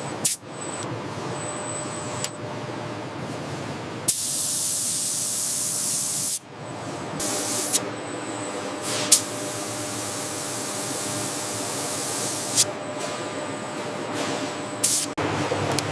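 Hissing spray in two stretches: a loud burst lasting a couple of seconds, then a longer, softer one, with sudden cuts between them over a steady mechanical background noise.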